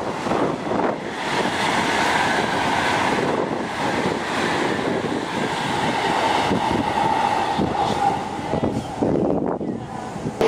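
High-speed train running: a steady rushing noise with a faint held tone, dipping shortly before the end.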